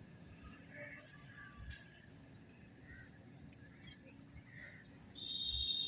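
Outdoor ambience of scattered faint bird chirps over a low rumble; about five seconds in, a loud, steady, high-pitched insect buzz starts up.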